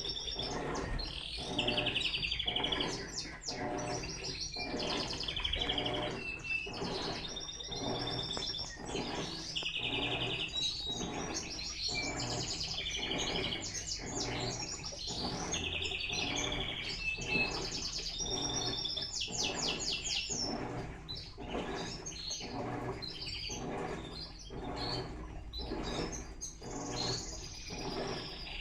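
Birds chirping and trilling over an Electrolux LTE12 top-loading washing machine agitating in its rinse, the water sloshing back and forth about one and a half strokes a second.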